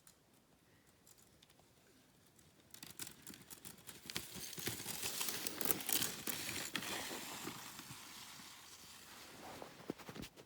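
Sled runners scraping and hissing over snow, swelling from about three seconds in to a peak around six seconds, then fading, with scattered crunches and clicks.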